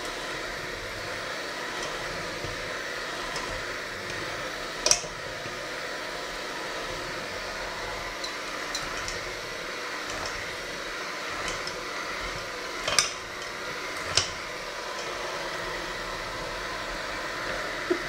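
Electric hand mixer running steadily, its beaters working dough in a stainless steel bowl. Three sharp clinks of the beaters striking the bowl: one about five seconds in and two close together later on.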